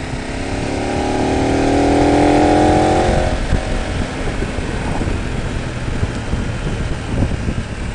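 Motorcycle engine heard from the rider's seat, rising in pitch for about three seconds as the bike accelerates, then fading into steady wind and road rush with the engine underneath while cruising.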